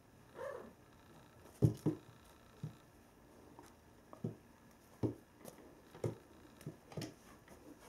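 A Norwegian Forest Cat's paws thudding on a wooden floor as it rears up and swipes at a silver-grass teaser wand, about seven separate thuds with faint rustling of the grass toy, the loudest two close together nearly two seconds in. A brief high squeak comes about half a second in.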